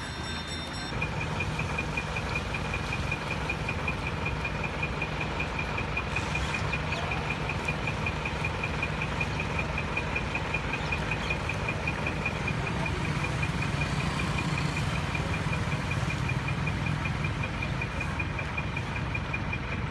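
Engine idling steadily, with a high, rapid, evenly pulsing beep over it, both starting about a second in.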